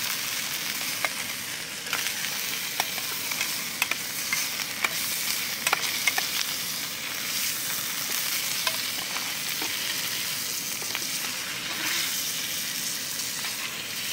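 Steak sizzling in butter and thyme in a small metal mess-kit pan on a camp stove, a steady frying hiss. A metal spoon clinks and scrapes against the pan as the butter is spooned over the meat, with a run of sharp clicks in the first half.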